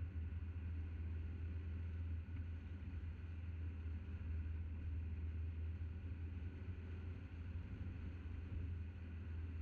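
Steady, muffled low rumble of a car driving at speed: road and wind noise picked up by a camera mounted outside on the bonnet.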